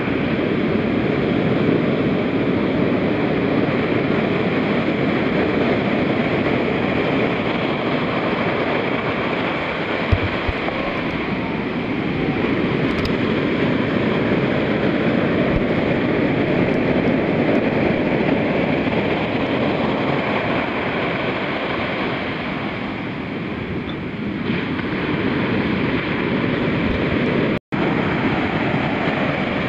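Heavy shorebreak surf from a large south swell crashing and washing up the sand, a continuous loud rush of water. Near the end the sound cuts out completely for an instant.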